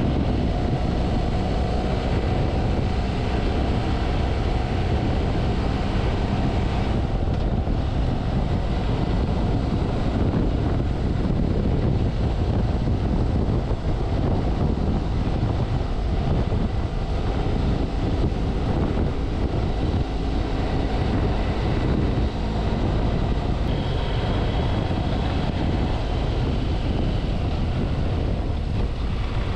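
BMW F700GS motorcycle's parallel-twin engine running steadily while riding, under steady wind rush on the microphone.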